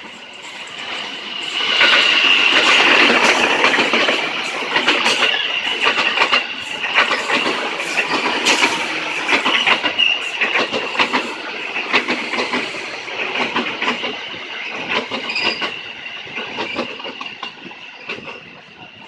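Electric commuter train passing close by, its wheels clacking quickly over the rail joints with a steady high-pitched tone running over the rumble. It swells loud a couple of seconds in and fades away near the end.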